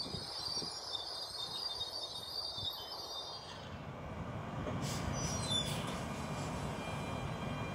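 Alstom Régiolis regional trains. First a high steady whine from one approaching along the platform, then, after a cut, a steady low rumble from another Régiolis at the platform, with a few short falling squeals about five seconds in.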